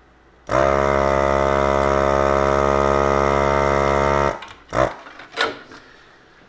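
Electric desoldering gun's vacuum pump buzzing steadily for about four seconds as it sucks molten solder off a power-supply filter capacitor's leads, then a few short knocks.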